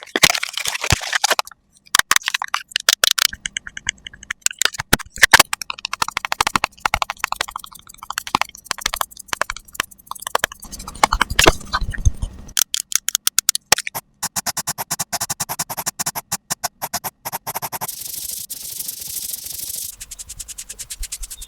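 ASMR makeup sound effects: rapid clicking and tapping with scratchy scraping, a steadier rustle in the second half, and a high hiss near the end.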